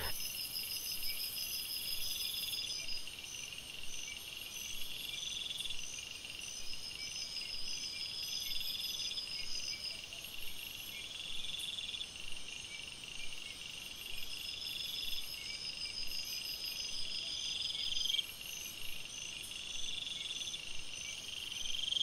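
Chorus of crickets and other singing insects: several high-pitched trills and chirps overlap, with trills of a second or two recurring every few seconds over a steady run of short chirps about three a second.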